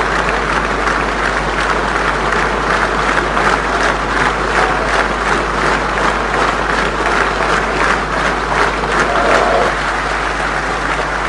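Sustained applause from a large standing audience filling a big assembly hall: dense, steady clapping of hundreds of hands.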